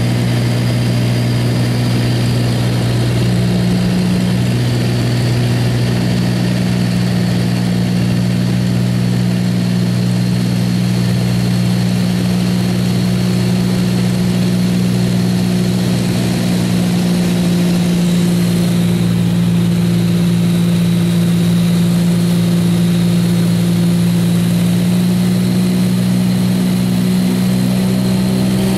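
Light aircraft's engine and propeller droning steadily, heard from inside the cabin on approach to a gravel bar landing. The pitch shifts slightly a few seconds in and again near the end.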